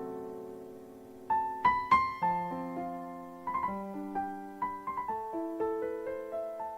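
Piano music: a held chord dies away, then from about a second in new notes and chords are struck one after another, each ringing and fading.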